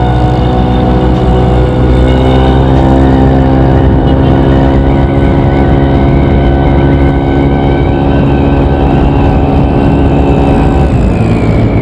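Honda Beat scooter's single-cylinder four-stroke engine under way through an MP7 'hiung' regulation aftermarket exhaust. A steady engine note rises slightly at first, then slowly falls, and drops away near the end as the throttle eases.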